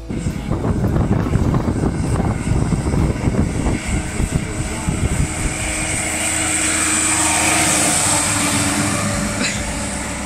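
Vintage grey Ferguson tractor engine running as it drives along a lane, growing louder as it comes up to the camera about two-thirds of the way in, then fading as it moves away. Gusty wind buffets the microphone in the first few seconds.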